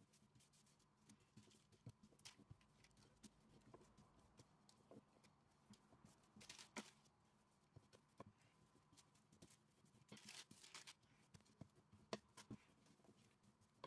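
Faint sounds of a wooden rolling pin rolling out cookie dough on parchment paper: scattered light taps and knocks, with the paper rustling in a few short swishes.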